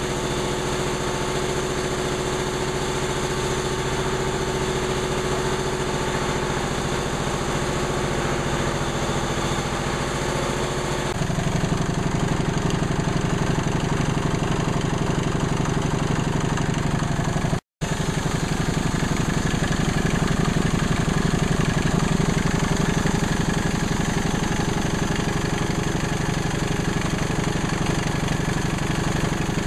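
1930 Atlas Diesel type C2DKV monoblock air compressor running steadily, its diesel engine firing in an even rhythm. About eleven seconds in the sound becomes louder and heavier, and a little past halfway it cuts out for an instant.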